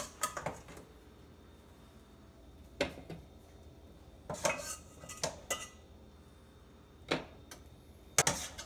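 Metal spoon clinking and scraping against a stainless steel mixing bowl as sauced chicken wings are scooped out. It comes as a few separate sharp clinks with short ringing, the busiest spell about halfway through.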